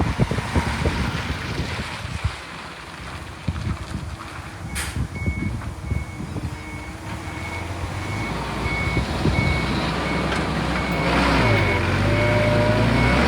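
Earthmoving machinery working: scattered clanks and knocks at first, then a construction vehicle's reversing alarm beeping at a regular pace from about five seconds in. Under the beeps a diesel engine grows louder and rises and falls in pitch near the end.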